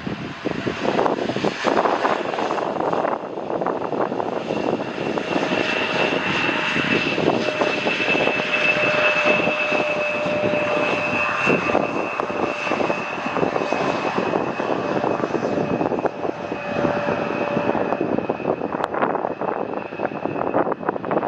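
Jet airliner passing close on its landing approach: a loud, steady engine roar with a steady high whine held over it.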